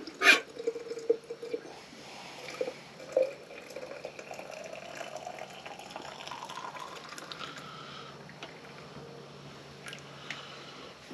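Hot liquid poured from a metal kettle into a steel vacuum flask, with a sharp clink near the start. The pitch of the filling rises steadily as the flask fills, then fades out about eight seconds in.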